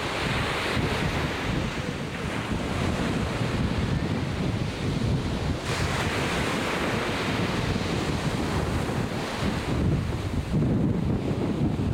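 Ocean surf breaking and washing up the beach, with wind buffeting the microphone; the hiss of the wash swells about six seconds in.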